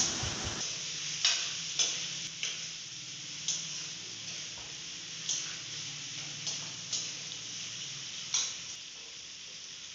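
Vegetables frying in oil in a metal pan, sizzling steadily, while a steel spatula stirs them and now and then knocks or scrapes against the pan with a sharp click.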